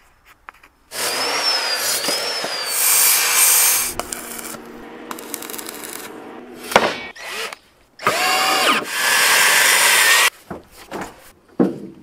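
Workshop power tools in a series of short bursts. One runs with a whine that rises and falls twice about a second and a half in. Another winds up and down in pitch around eight seconds in. Between them come quieter stretches with a steady low hum and a few sharp knocks.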